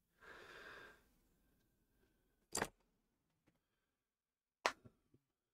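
A soft breathy exhale lasting just under a second, then two sharp clicks about two seconds apart, the second followed by a couple of faint ticks.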